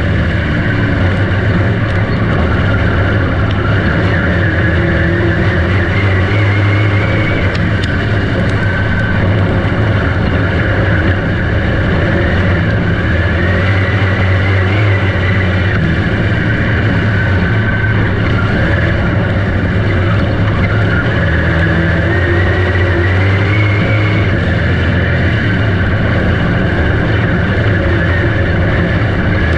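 Dirt-track race car engine running continuously at speed, its pitch rising and falling every several seconds as the revs climb and drop.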